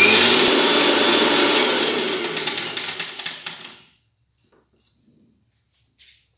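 Electric mixer grinder motor running with its small steel jar, grinding blanched spinach and green chilli into a smooth paste. It grows gradually quieter and stops suddenly about four seconds in.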